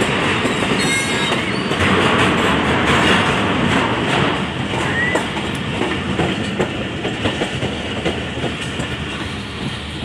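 Hazara Express passenger train running, heard from inside the coach: a steady rumble with regular clicking of the wheels over rail joints, and a brief high squeal about a second in.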